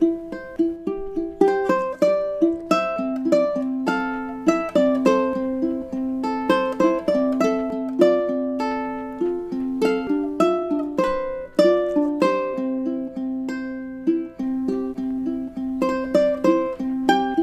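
Solo ukulele playing an instrumental tune: plucked melody notes and strummed chords, each ringing out and decaying.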